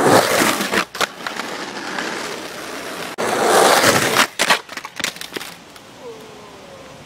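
Skateboard wheels rolling over rough, cracked asphalt, loudest as the board passes close about three to four seconds in. Sharp clacks come from the board near the first second and again a little after the pass.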